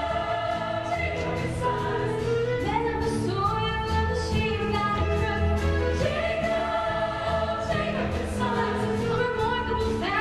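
A large musical-theatre cast and choir singing together over instrumental accompaniment, with long held notes changing every second or two.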